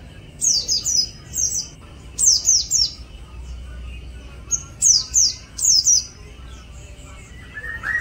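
Caged white-eye (pleci) singing its morning warm-up song: quick clusters of three or four short, high chirps, each sliding down in pitch, repeated several times with short pauses between.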